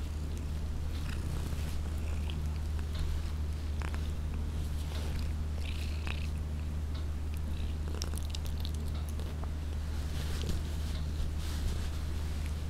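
Domestic cat purring steadily, with faint soft clicks here and there as it mouths and nibbles a finger.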